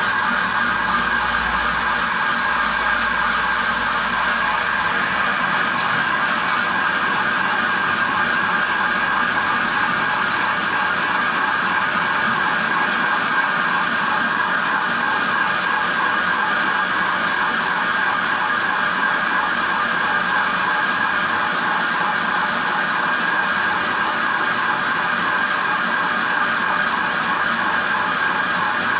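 Metal lathe running steadily with a constant high whine while boring out the loose bearing seat of a water pump housing. The bore is being enlarged to take a pressed-in bushing.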